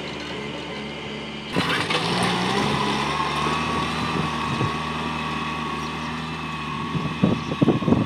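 Farm tractor's diesel engine running steadily as it pulls a disc plough through turf. Its note changes abruptly about one and a half seconds in and rises briefly before settling. Uneven low buffeting, like wind on the microphone, comes in near the end.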